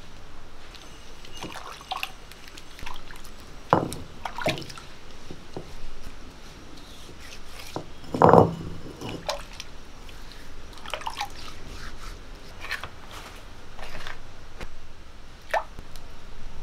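Wet, sticky squelches and drips of a hand scooping and squeezing thick ground urad dal batter, in scattered short bursts with a few clicks; the loudest squelch comes about eight seconds in.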